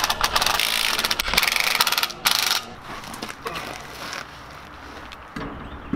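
Cordless driver spinning lug nuts onto a trailer wheel's studs: a loud, fast rattling buzz in two runs over the first two and a half seconds. After that come quieter knocks and scrapes as the wheel and tyre are handled.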